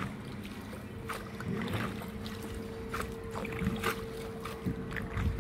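Small tour boat moving on a canal: water splashing and knocking against the hull at irregular moments, with a faint steady hum that starts about a second in.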